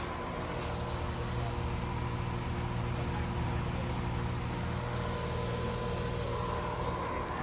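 A 1998 heat pump outdoor unit running in cooling mode: the compressor's steady hum with the condenser fan blowing, a constant drone with a low hum and a few higher steady tones over it.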